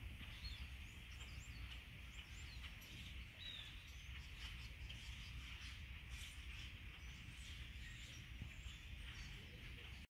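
A large flock of birds calling together: many short, overlapping chirps and squeaks over a steady low rumble.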